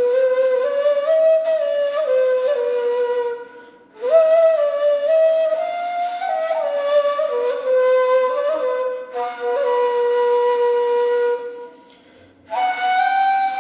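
Ney (Turkish end-blown reed flute) playing a solo melody in long phrases with small slides between notes. It pauses briefly twice, about four seconds in and near the end.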